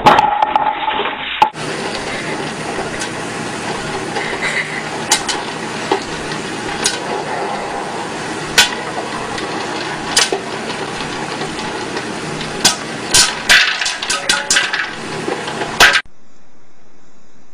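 Sharp knocks and clatter of a glass bowl on a hard floor over a steady hiss. The knocks come thicker and louder near the end, then stop abruptly.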